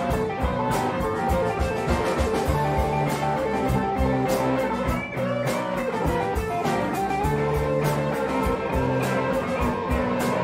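Rock band playing, with electric guitars, bass and a drum kit keeping a steady beat.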